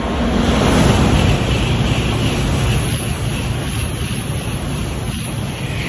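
Shinkansen bullet train running through a station at high speed without stopping: a loud, steady rush of air and wheel noise. It is loudest about a second in and eases off slowly as the cars sweep past.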